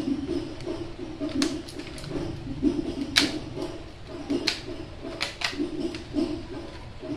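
Metal staples being pried out of a cardboard box by hand, with about five sharp clicks and snaps spread through, the loudest a little after three seconds, over cardboard handling.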